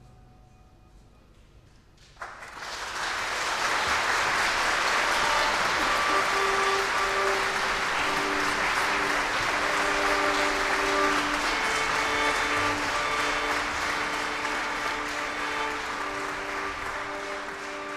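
Audience applause breaks out suddenly about two seconds in, after a short quiet at the close of the piece, and carries on as dense, steady clapping that eases slightly toward the end. A few held musical notes sound beneath the applause.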